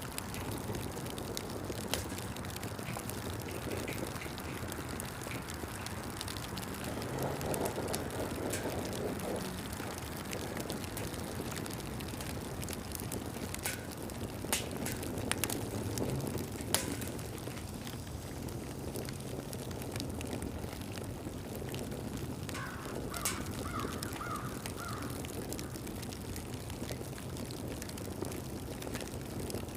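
Campfire burning: a steady rush of flame with scattered sharp crackles and pops, a few louder pops about halfway through.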